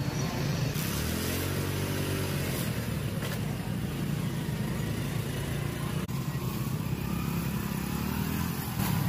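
Motorcycle engine running and revving as it pulls away and rides on, its pitch rising and falling a couple of times.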